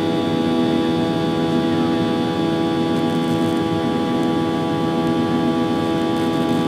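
CFM56-7B turbofan of a Boeing 737-800 heard inside the cabin during the climb: a steady drone with a cluster of unchanging tones over a rushing noise.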